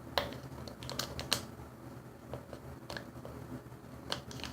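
A few light, irregular clicks and taps from a container and utensil being handled while the slime mixture is mixed. The sharpest clicks come just after the start and about a second in.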